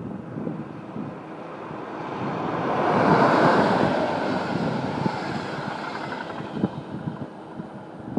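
DB Regio double-deck passenger train hauled by a class 143 electric locomotive passing on a nearby track: its running and rail noise swells to a peak about three seconds in and then fades away. Wind buffets the microphone.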